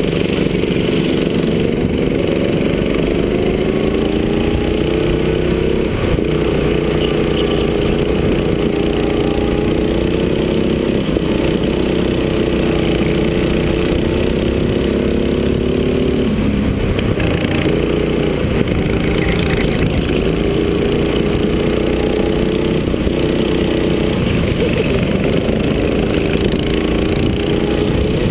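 Go-kart engine heard from on board the kart, running hard on track. Its pitch climbs and falls with the throttle, with a sharp drop about sixteen seconds in before it climbs again.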